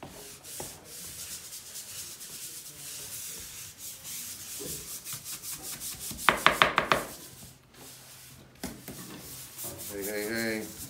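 Hand scrubbing on wet Saltillo terracotta tile: quick back-and-forth rasping strokes as a failed sealer is stripped off. About six seconds in there is a short run of louder, squeaky strokes.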